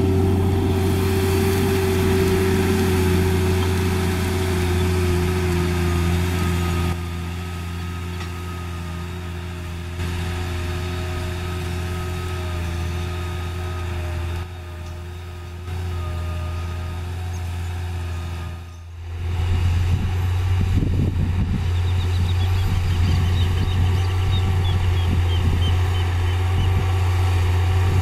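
New Holland T6.130 tractor's diesel engine running steadily under load while pulling a Baldan 24-disc offset disc harrow through the soil. The level shifts as the shots change, and the sound grows louder with a rougher low rumble in the last third.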